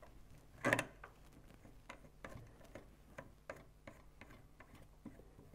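Small clicks of a cable's F connector being screwed by hand onto an FSS200 clamp-on ultrasonic flow sensor. One louder click comes near the start, then a run of faint, irregular ticks.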